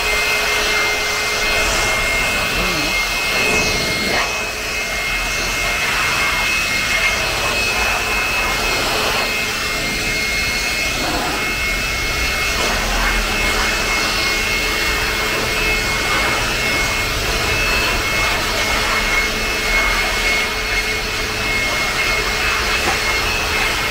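Handheld electric air blower running steadily, a high whine over rushing air, blowing water off a freshly washed car's paintwork; it comes on abruptly.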